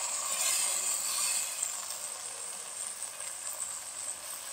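Chicken pieces sizzling in a wok as a cornflour-and-water slurry is poured in and worked through with a wooden spatula, to thicken the gravy. A steady hiss, a little louder in the first second or so.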